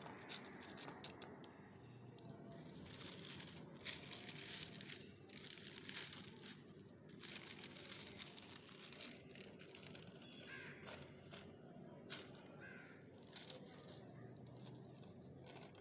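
Baking paper crinkling and rustling as it is pressed into a metal cake tin and worked around its inner wall, in an irregular run of short crackles.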